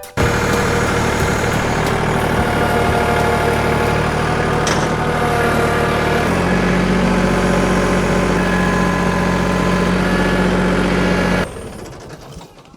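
An engine running steadily, its note changing about six seconds in, then cutting off abruptly near the end.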